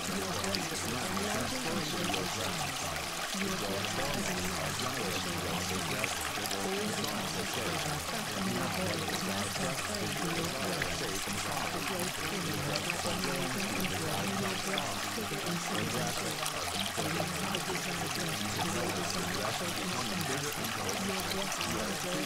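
Steady running water, like a flowing stream, continuing without a break, used as the background sound bed of a subliminal track.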